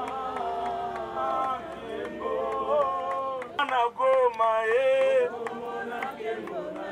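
A man singing a chant through a handheld megaphone, with other voices singing along: long held notes that slide between pitches, louder about halfway through.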